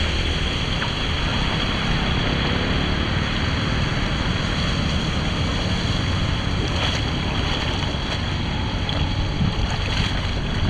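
Floodwater rushing steadily into a cleared street drain.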